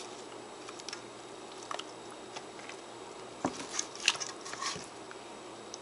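Hands mixing raw fish with herbs, sliced green pepper and lime-juice marinade in a bowl: faint, scattered wet squishes and rustles, with a few sharper clicks about three and a half to four seconds in.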